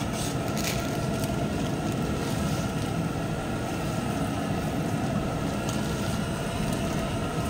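Steady low rumble of the cooking stove burning under a large pot of chicken gravy, with a few light clicks near the start.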